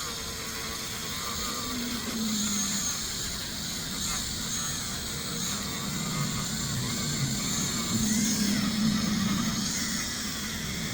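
Small electric polishing tool running steadily with a buffing wheel loaded with red rouge compound, polishing copper plating; its pitch wavers up and down as the piece is worked against the wheel.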